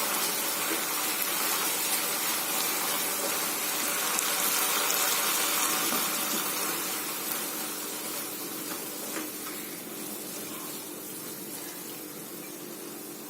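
Maggi instant noodles boiling hard in a pan of water, a steady bubbling hiss that slowly gets quieter toward the end, with a few faint ticks.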